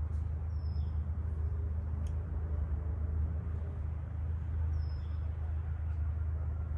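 Motorcycle on the move: a steady low engine-and-wind rumble, with two brief high chirps about four seconds apart.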